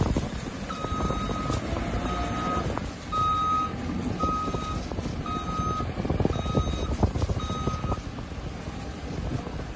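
Reversing alarm of a heavy vehicle beeping about once a second, seven beeps that stop near the end, over the low rumble of a diesel engine.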